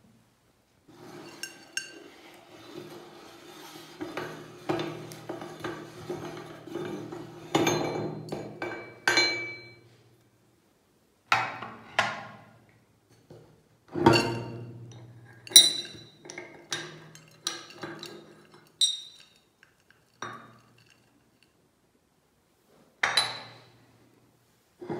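Irregular sharp metal clinks and knocks as the cutting plate and knife are taken off an electric meat grinder's head and handled, with silent gaps between. A low steady hum runs under the clinks for much of the first half and again a little after the middle.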